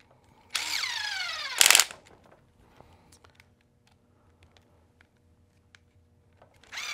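Small electric screwdriver driving a screw: its motor whine drops in pitch as the screw tightens, ending in a short rapid rattle as it seats. Light handling clicks follow, and a second screw starts being driven near the end.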